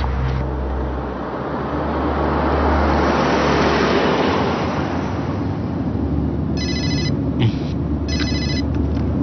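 A car drives past on the road, its noise swelling and then fading. A mobile phone then rings twice, short electronic trills about a second and a half apart.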